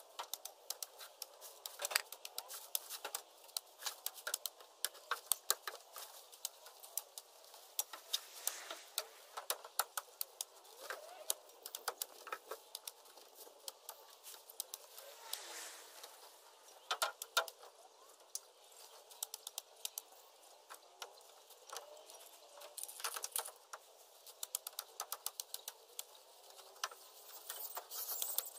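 Machete (cane knife) chopping leafy tree branches: a rapid, irregular string of sharp cracks in clusters, with the branches rustling in between.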